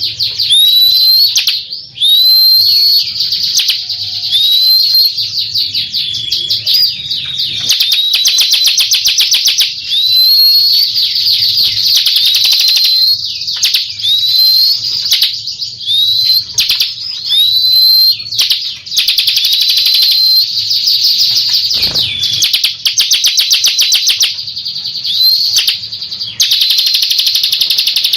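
Bar-winged prinia (ciblek) singing continuously: fast dry trills of ticking notes, broken every second or two by short rising whistled notes.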